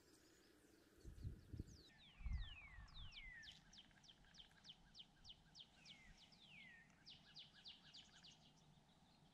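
Frozen lake ice cracking and singing: a couple of low thumps about a second in, then many faint descending whistles. Some are long sliding glides, and near the end come quicker runs of short ones.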